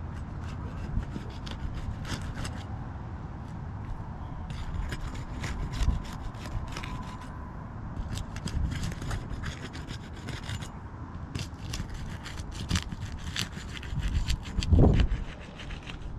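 A roof snake prying under asphalt shingles, scraping and rubbing with clusters of sharp crackles as the shingles' adhesive seal strips break loose. A heavier low thump comes near the end.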